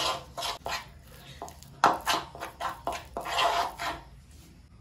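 Metal spoon stirring a thick cornflour paste in a bowl, scraping and knocking against the bowl in irregular strokes with a sharper clink about two seconds in, dying away near the end.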